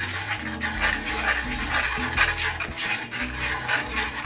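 Wire whisk beating ragi flour into water in a clay pot, a quick uneven run of wet scraping and light clicks.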